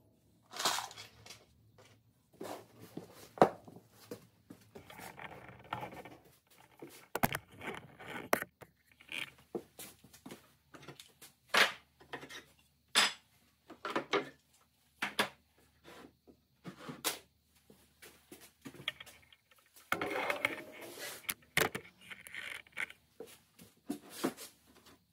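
Irregular knocks, clicks and short scraping sounds of wooden cabinet drawers and drawer fronts being handled, pushed and slid, sped up to double speed.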